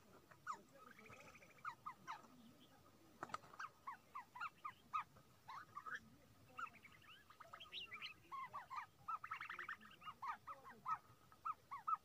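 A flock of small birds chirping, many short calls overlapping without a break, with a few buzzy runs of chattering calls mixed in.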